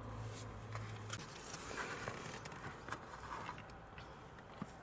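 Faint handling noises: a few small clicks and light rustling and scraping, with a steady low hum that cuts off about a second in.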